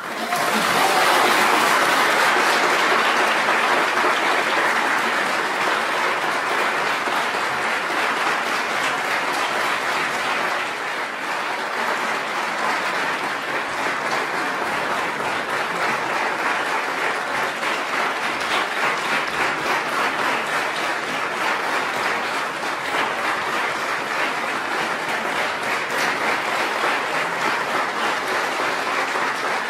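Audience applauding, starting suddenly out of silence, loudest over the first few seconds and then holding steady.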